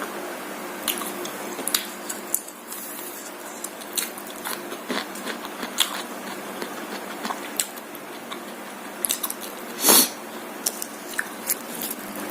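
Close-miked eating of martabak: biting and chewing, with many short crisp clicks and mouth smacks and one louder crunch about ten seconds in.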